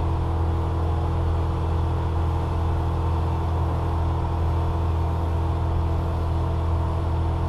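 An engine running steadily at one constant speed, a low even hum that doesn't rise or fall.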